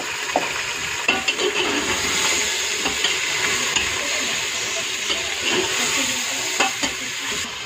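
Beef pieces and spices frying in hot oil in an aluminium pressure cooker, a steady sizzle, while a slotted steel spoon stirs them, scraping and knocking against the pot now and then.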